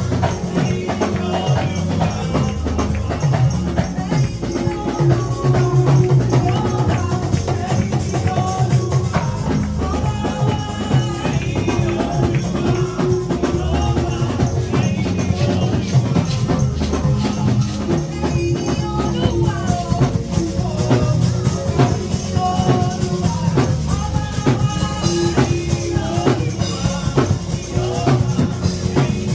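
Live church praise music: voices singing over drums and a shaken tambourine, with a strong bass line and a steady beat.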